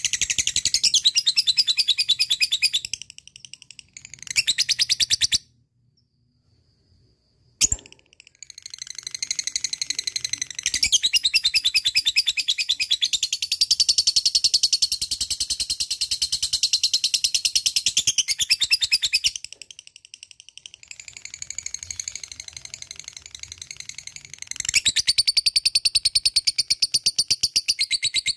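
Female lovebird's 'ngekek' song: long runs of very rapid, high-pitched chattering trill. The runs are broken by a silent gap of about two seconds early on, which ends with a single click, and by a softer stretch about two-thirds of the way through.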